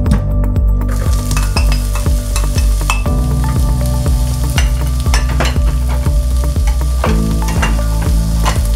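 Sliced onion sizzling in hot oil in an electric skillet, the sizzle rising about a second in as the onion lands, with scattered sharp clicks and pops. Background music plays underneath.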